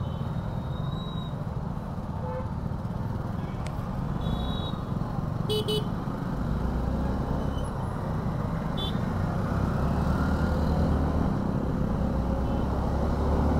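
Suzuki V-Strom 250 motorcycle engine running low and steady in road traffic, a little louder in the second half, with short vehicle horn beeps about three times, the clearest about five and a half seconds in.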